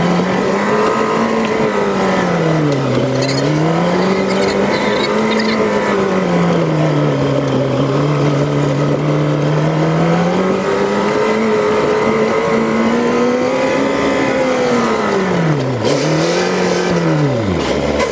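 Jeep engine pulling under load, its pitch rising and falling as the throttle and gears change, with two quick drops and recoveries near the end.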